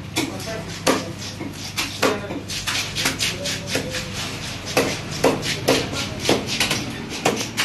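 A large knife chopping through a skinless rohu fish and striking a wooden log chopping block, repeated sharp knocks at an irregular pace, one or two a second, as the fish is cut into steaks.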